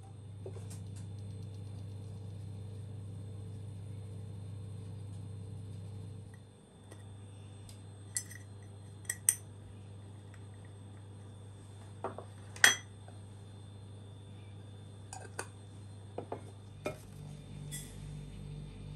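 A metal sieve and utensils clink sharply against a glass mixing bowl as dry ingredients are sifted and added, about ten short clinks spread over the second half, over a steady low hum.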